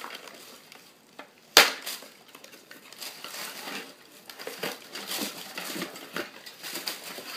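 Cardboard packaging and paper being handled while a small boxed music stand is unpacked: rustling and crinkling with scattered small clicks and knocks, and one sharp, loud knock about a second and a half in.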